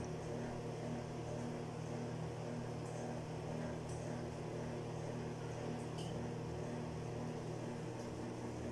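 A steady low electrical hum, with a few faint light scrapes of a plastic spatula spreading batter in a nonstick frying pan.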